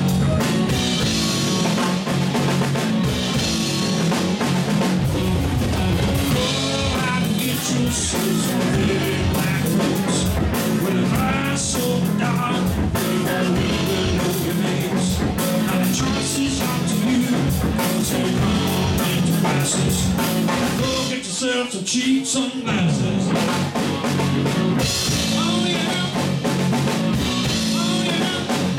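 Live rock band playing: electric guitar, electric bass and a drum kit, with a man singing. About three-quarters of the way through, the bass drops out for a second or so before the full band comes back in.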